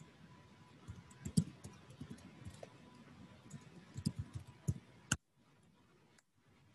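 Scattered faint clicks and light taps, bunched around four to five seconds in. Just after five seconds the background hiss drops away.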